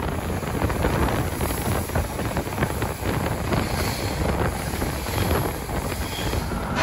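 Wind buffeting a microphone held out of a moving train's window, over the running noise of the train on the track.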